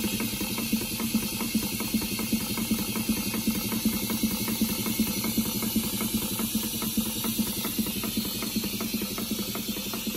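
Model horizontal mill steam engine running at a steady speed, making a quick, even clatter of several beats a second over a steady hum.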